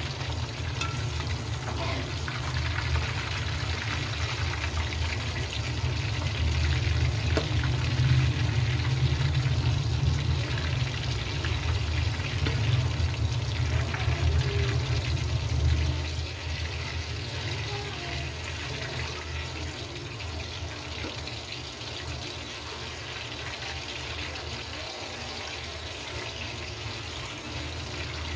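Chicken tenders deep-frying in hot oil in a steel karahi: a steady sizzle with dense crackling, over a low rumble. It is loudest in the middle and eases off a little after about sixteen seconds.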